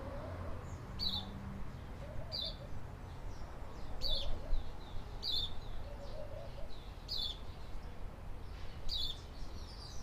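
A small bird chirping, one short high note repeated six times, about every one and a half seconds, over a steady low rumble.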